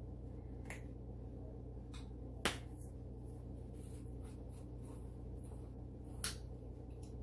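A few short, sharp plastic clicks from a seasoning jar being handled and opened, the loudest about two and a half seconds in and another near six seconds, over a steady low hum.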